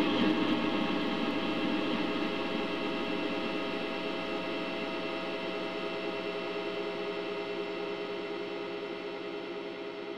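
A Yamaha PSR-E233 keyboard sound effect layered over itself thousands of times, merging into one dense, sustained, gong-like drone of many steady tones that slowly fades.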